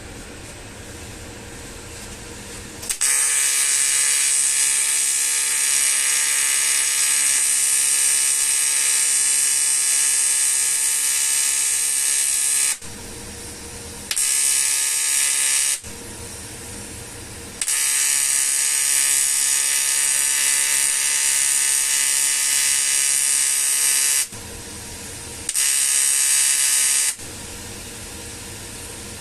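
TIG (argon) welding arc on an aluminium alloy wheel, buzzing steadily in four runs that switch on and off abruptly: a long one of about ten seconds, a short one, another of about seven seconds, and a short one near the end, with a quieter steady hum between them.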